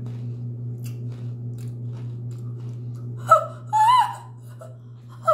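A woman chewing crunchy snack food quietly, then letting out a short sharp gasp and a high-pitched wavering whimper about three to four seconds in, a pained reaction to the heat of Flamin' Hot Cheetos.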